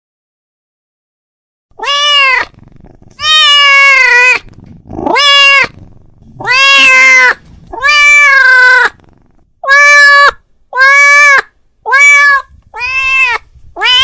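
A domestic cat meowing loudly, again and again: about ten drawn-out calls that each rise and fall in pitch, starting after a couple of seconds of silence. The cat is calling out to another cat.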